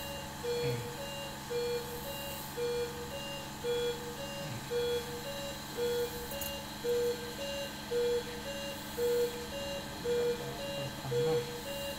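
Operating-room patient monitor giving its pulse beep, about two short beeps a second in time with the infant's heartbeat, the pitch stepping slightly from beep to beep. A steady equipment hum runs underneath.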